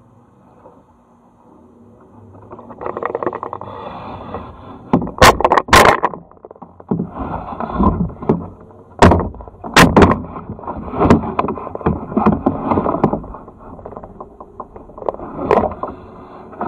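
Kayak hull and paddle scraping and knocking against a large rock: a run of rubbing and grinding from about three seconds in, with several sharp knocks, the loudest pairs about six and ten seconds in.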